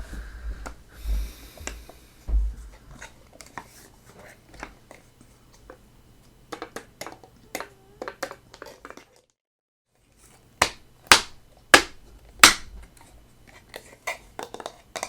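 Hands fiddling with a puzzle box: scattered small clicks, taps and rubbing. After a brief total dropout, four sharp, loud knocks come in quick succession, about half a second apart.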